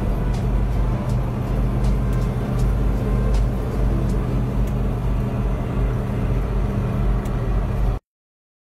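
Steady engine hum and road noise heard from inside a moving vehicle's cab, with a few faint clicks and rattles. It cuts off suddenly about eight seconds in.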